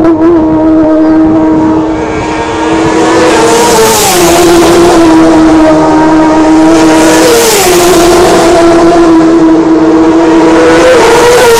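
Racing motorcycles at full throttle flashing past one after another, a high steady engine note that drops sharply in pitch as each goes by: about a third of the way in, again past halfway, and at the end.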